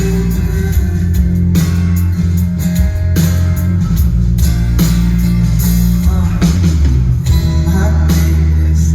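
Live band playing loudly: guitar over heavy bass and drums, an instrumental passage during a sound check.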